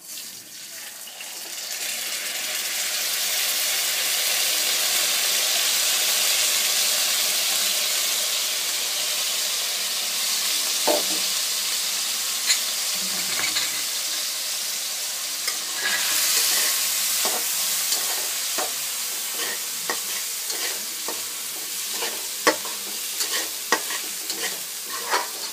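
Washed rice poured into hot refined oil in a steel kadhai, sizzling loudly, the hiss building over the first few seconds and then holding steady. From about halfway, a metal ladle clicks and scrapes against the pan as the frying rice is stirred.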